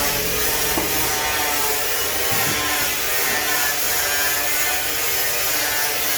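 Steady mechanical noise of tools at work on a motorcycle engine, with ratcheting and rubbing.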